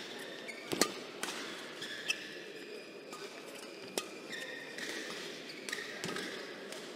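Badminton rally: rackets striking the shuttlecock with sharp cracks, about five hits spread unevenly, the loudest about a second in, with short squeaks of court shoes on the floor between strokes.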